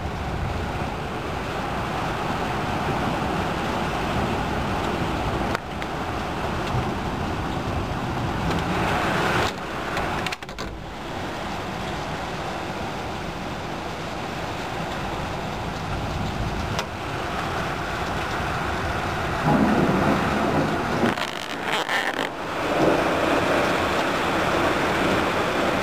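Heavy thunderstorm rain pouring steadily, a continuous rushing noise, with louder spells near the end.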